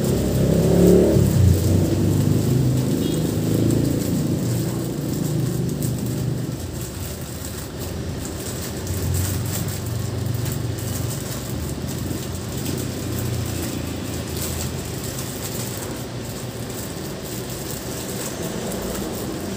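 A low rumble like vehicle engine noise, loudest in the first few seconds and then easing, with light crinkling of plastic mushroom fruiting bags being opened by hand.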